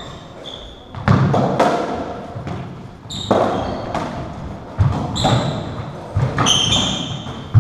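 Racketball rally: the ball cracks off the rackets and the court walls over and over, each hit echoing in the court, with short sharp squeaks of shoes on the wooden floor between them.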